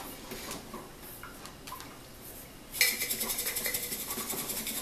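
A metal lid screwed onto a glass mason jar with a few small clicks, then, about three seconds in, the half-full jar of sugar with vanilla bean pulp is shaken hard: a rapid, steady rattle of sugar against the glass to mix the vanilla through.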